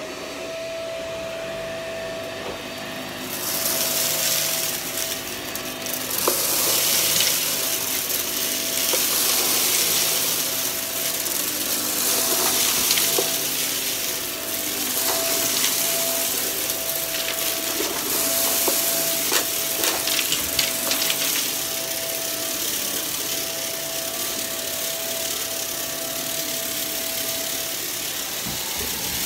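Upright vacuum cleaner switched on: its motor spins up to a steady high whine, then runs with loud rushing airflow as the brushroll works the carpet. Scattered clicks and crackles of debris being picked up.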